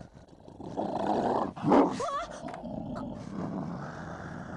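Large dog, a Tibetan mastiff, growling low and rough. The growl swells loudest about a second and a half in, then holds on steadily.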